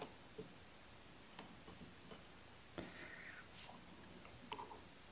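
A handful of faint, scattered clicks and a light scrape as steel locking forceps work down in the chainsaw's carburetor compartment, reaching for the fuel line.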